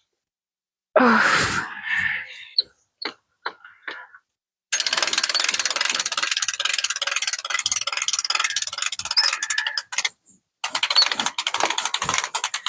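A patio umbrella's crank being wound, a fast run of ratcheting clicks that pauses briefly and starts again. About a second in there is a short loud cry that falls in pitch.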